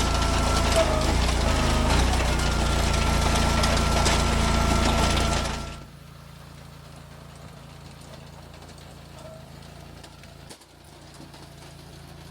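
Eastonmade AXIS hydraulic wood splitter running loud under load, with a steady whine and sharp cracks of splitting wood. About six seconds in the loud noise drops away to a low, steady engine hum.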